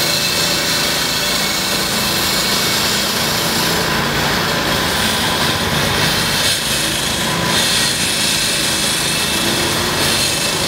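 Steady city traffic noise from a busy avenue, an even hiss with its most energy high up.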